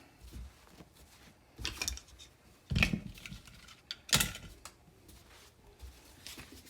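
Seat belt hardware and webbing handled on a work surface: a few sharp clacks and rattles, the loudest about two, three and four seconds in, with smaller ticks between.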